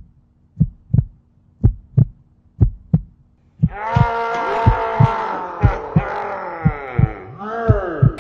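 A heartbeat sound effect: low double thumps about once a second. About three and a half seconds in, a long wail joins it, sliding down in pitch over the continuing beats.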